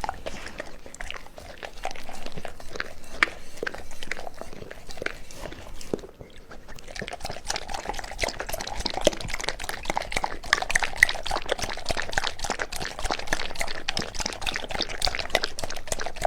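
Dog eating wet raw food from a bowl: wet chewing and licking clicks, with a short lull about six seconds in, then denser, faster wet lapping and licking.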